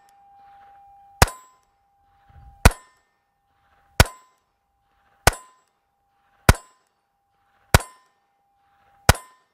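Seven shots from a Mauser HSc pistol in .32 ACP, about one every 1.3 seconds, each followed by a faint clang of the bullet striking a steel target. The steel keeps ringing at one steady pitch between shots.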